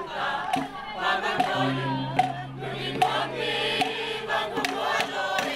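A crowd singing a song together, with sharp beats about every two-thirds of a second and a held low note coming in about a second and a half in.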